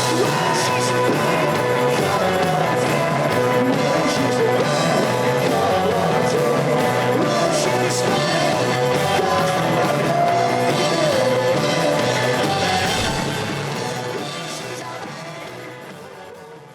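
Rock music with a singing voice, fading out over the last few seconds.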